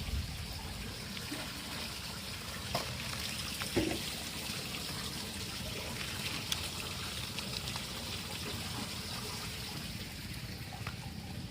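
Water running and splashing steadily as plastic toy trucks are washed, with a few light knocks about three and four seconds in.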